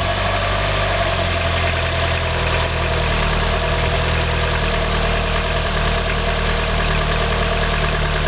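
Mitsubishi 4G63 Mivec engine, stroked to 2.3 litres, idling steadily with a knocking noise like piston slap, whose cause the owner never found.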